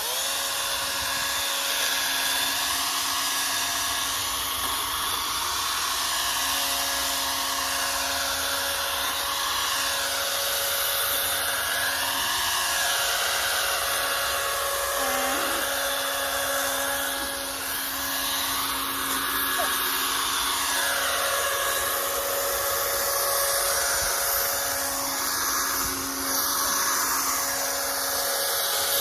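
Toro chainsaw running steadily, a continuous motor whine with only slight changes in load.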